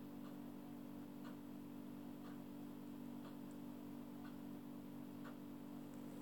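Faint, regular ticking about once a second, like a clock, over a steady low hum.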